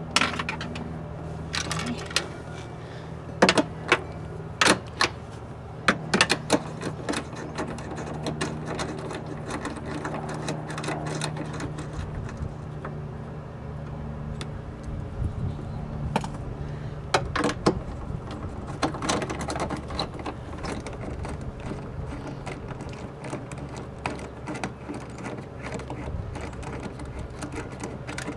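Socket wrench turning the 11mm bolts of a truck's side-mirror mount inside the door: runs of quick ratchet clicks and metal taps and rattles, mostly in the first half and again about two-thirds of the way in, over a steady low hum.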